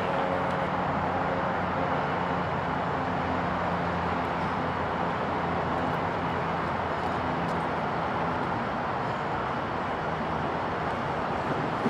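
Class 60 diesel locomotive hauling a train of hopper wagons, its eight-cylinder Mirrlees engine running with a steady low drone as it approaches.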